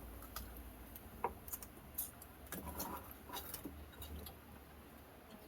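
Scattered light clicks and taps at an uneven pace, over a faint low hum.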